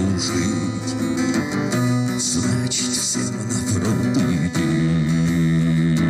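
Acoustic guitar strummed live, with a man singing the last word of a line about a second and a half in, then the guitar playing on alone.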